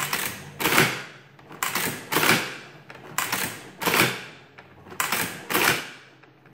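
Antique Burroughs Class 3 adding machine mechanism clattering as its crank handle is pulled and let go over and over. There are about four cycles, each a pair of clacks about half a second apart. The handle springs back fast on release, which the owner takes as a sign that the handle's oil dashpot damper may have lost its damping.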